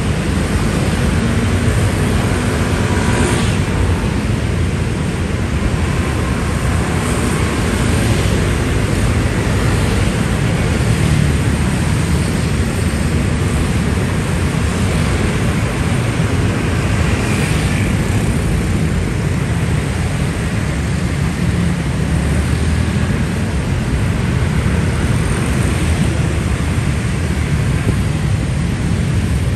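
Dense motorcycle and scooter traffic passing continuously in a steady, loud rumble.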